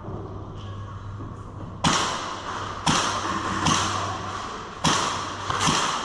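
Airsoft guns firing single shots, five sharp cracks at irregular intervals about a second apart starting about two seconds in, each echoing briefly off the walls of the indoor course.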